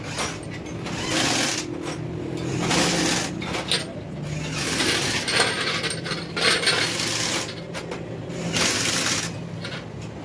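Steel engine valves from a Hino 7D engine clinking and scraping against each other and the metal basin as they are scrubbed by hand in liquid, in repeated bursts of rattling and sloshing over a steady low hum.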